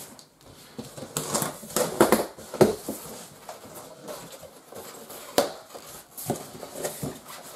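Large cardboard box being opened by hand: flaps scraping and flexing, packaging rustling, with irregular knocks and clicks, loudest about two seconds in and a sharp knock about five seconds in.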